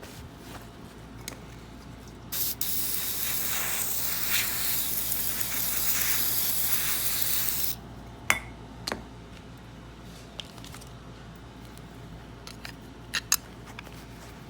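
Aerosol can spraying: a short puff, then one steady hiss lasting about five seconds. A few sharp clicks follow.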